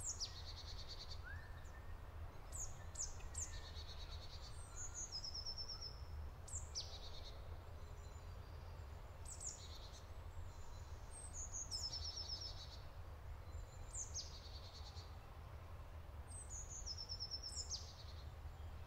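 Songbirds singing, faint: high phrases come every couple of seconds, each a quick downward note followed by a rapid trill, over a steady low hum.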